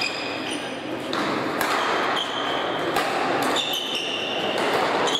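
Badminton rally on an indoor court: sharp racket hits on the shuttlecock and footfalls, several times over, mixed with short high-pitched squeaks of court shoes on the floor, all ringing in a large echoing hall.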